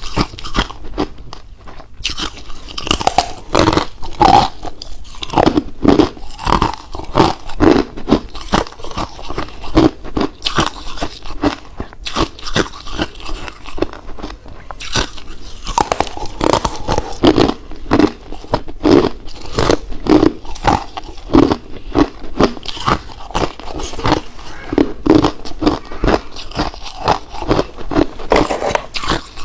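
Ice being bitten and chewed close to the microphone: rapid, irregular crunches, several a second.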